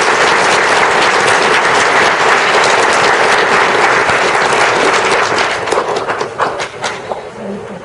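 A crowd of students applauding: dense, steady clapping that thins into scattered separate claps over the last couple of seconds.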